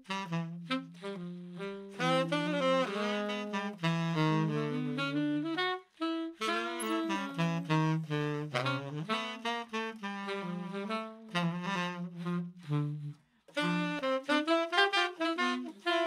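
Two saxophones playing a jazz duet in short phrases, a lower line held under a moving higher one, with two brief pauses. At least one is played on a custom 3D-printed Syos mouthpiece.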